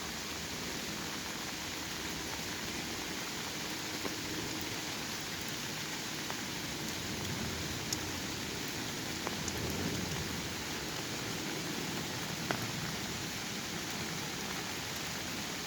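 Steady autumn rain falling in a forest: an even hiss with scattered sharper taps of single drops.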